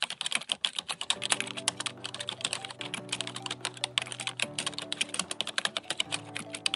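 Fast, continuous typing on a computer keyboard over background music with sustained low notes.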